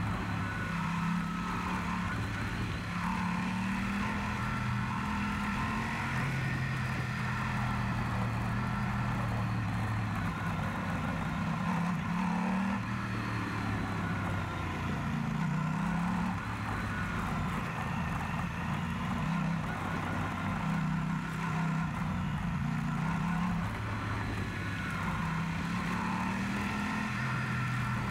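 Yamaha Super Ténéré parallel-twin motorcycle engine running under way, its note rising and falling several times, over a steady rush of wind and road noise.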